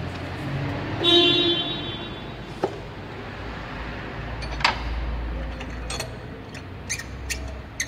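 A car horn sounds briefly about a second in, over a steady low rumble, followed by a few sharp clicks spaced a second or so apart.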